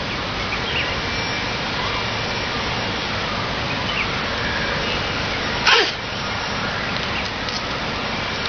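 A chimpanzee sick with flu sneezes once, a short sharp burst a little past halfway through, over a steady hiss.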